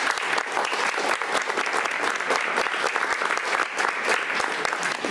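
Audience applauding: many hands clapping steadily and without a break.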